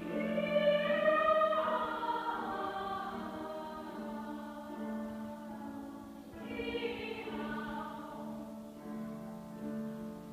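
Women's choir singing, the voices sliding down in pitch about a second and a half in and swelling again around six and a half seconds.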